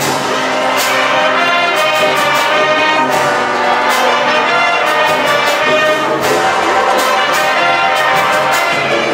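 HBCU marching band playing loudly: trumpets and trombones hold sustained chords over sharp percussion hits every half second to second.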